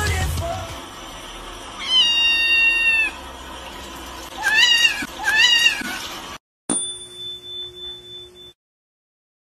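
A kitten meowing three times: one long, level meow about two seconds in, then two shorter meows that rise and fall, close together, a couple of seconds later.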